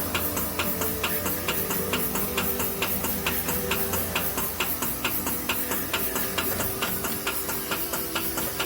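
Background music with a steady ticking beat of about four ticks a second over held tones.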